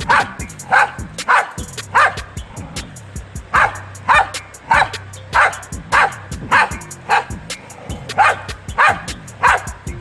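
A dog barking over and over in short, sharp barks, about one bark every half second with a brief pause about two and a half seconds in. Background music with a low held note plays underneath.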